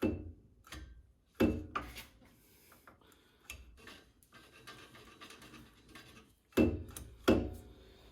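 Sharp metal knocks and clanks on the Chrysler 8.25 rear axle's parts while a stuck axle C-clip is worked loose. About five knocks come in two clusters, one group near the start and one near the end, with quieter scraping and rubbing between them.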